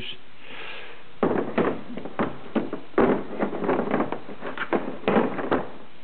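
Anderson VC6-350 compression crimper being handled and laid into its moulded plastic carrying case: a run of irregular knocks and clatters beginning about a second in.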